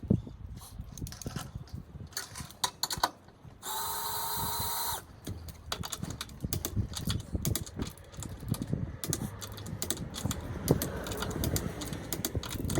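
A power tool whirs steadily for about a second and a half while the wheel nuts are run onto the studs. Around it are scattered clicks and knocks of the nuts, socket and tools being handled.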